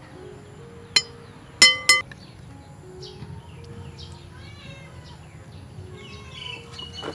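A metal spoon clinks sharply against a glass bowl three times, each strike ringing briefly, in the first two seconds. Faint chirping animal calls follow later.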